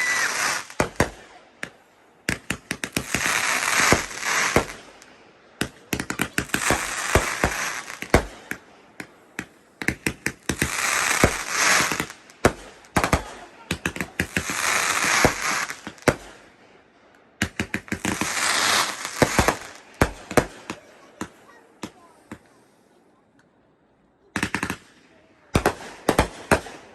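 Fireworks going off in repeated surges about every four seconds, each a rapid run of sharp cracks and bangs over a hissing crackle. A quieter lull comes near the end, then a few last cracks.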